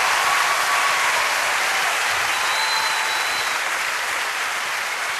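Audience applause, slowly fading.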